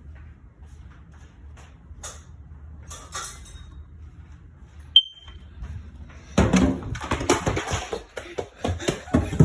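A smoke alarm gives one short, high beep about halfway through. Loud, irregular clattering and rustling noise follows near the end.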